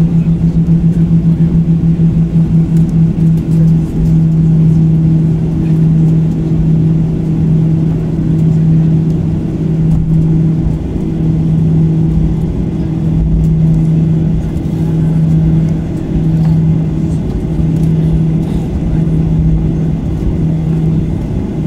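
Boeing 737-800's CFM56-7B engines at idle, heard inside the cabin while taxiing after landing: a steady low drone that pulses, quickly for the first few seconds and then about once a second, over a low rumble from the wheels and airframe.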